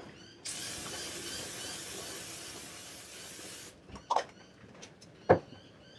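Aerosol can of brake cleaner spraying in one steady hiss of about three seconds, then two short knocks, the second louder.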